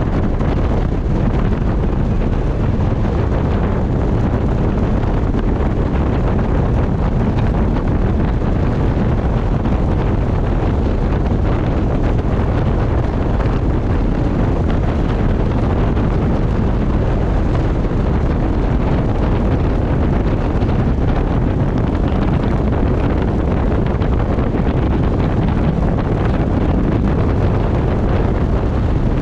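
Steady, loud wind buffeting the microphone while travelling at speed, with a continuous low rumble underneath.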